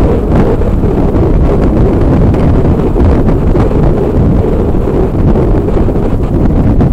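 Steady, loud wind buffeting on the microphone of a Yamaha XT 350 dual-sport motorcycle's handlebar camera while riding at highway speed, a low rumble that covers the engine.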